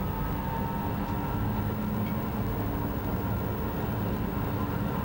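Saarbahn Bombardier Flexity Link tram-train running along street track, heard from the front of the car: a steady rolling rumble from the wheels and running gear, with a few faint steady tones running through it.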